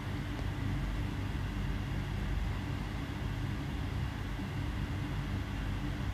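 Steady low hum of air conditioning in a large hall, with a few constant low tones under a faint hiss.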